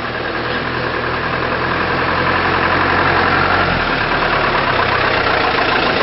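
Old Toyota four-wheel-drive jeep's engine running as it drives up a dirt road and passes close by, growing steadily louder as it approaches. The engine note changes about four seconds in.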